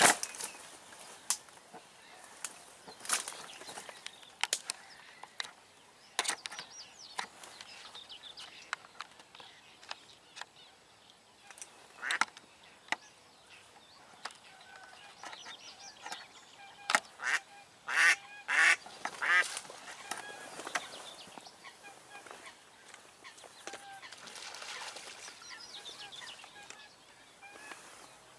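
Live decoy hen duck quacking on the water in scattered calls, loudest in a quick run of three or four calls about two-thirds of the way through: the hen's calling that draws drakes in.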